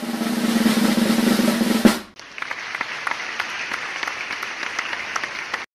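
Drum roll sound effect building up and ending on a sharp hit about two seconds in, for a score reveal. It is followed by a few seconds of crackly noise with many small clicks that cuts off suddenly near the end.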